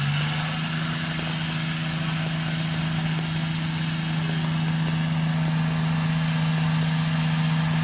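A truck engine held at steady high revs, one even drone with no change in pitch.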